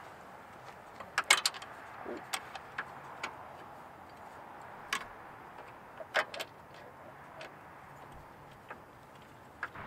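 Scattered sharp clicks and light metal taps as a hood-strut mounting plate is handled and fitted against the hood hinge by hand. A cluster of clicks comes about a second in, then single clicks every second or two over a faint steady hiss.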